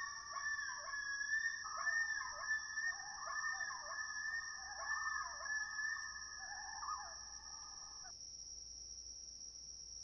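Common loons calling over a steady high chirring of crickets. The call is a long wavering run of repeated rising-and-falling notes that stops about eight seconds in, leaving only the crickets.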